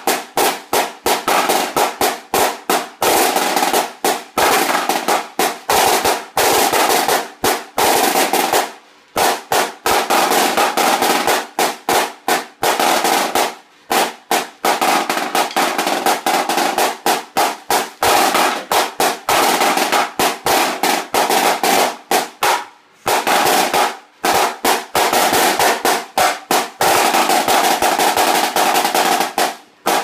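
HTS-200 marching snare drum played with sticks: fast rolls and rapid runs of strokes, loud and dense, with brief breaks about a third and three-quarters of the way through, stopping abruptly at the end.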